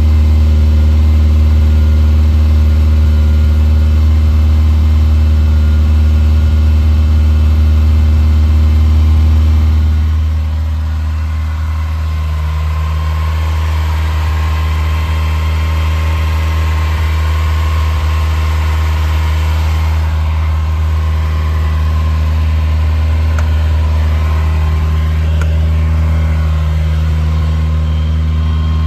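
Ferrari 308 GTSi's fuel-injected V8 idling steadily while still warming up from a cold start, the exhaust loud at the twin tailpipes. About ten seconds in it turns a little softer as the sound shifts to the open engine bay.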